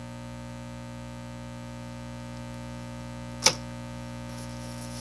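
Steady electrical mains hum, with a single sharp click about three and a half seconds in.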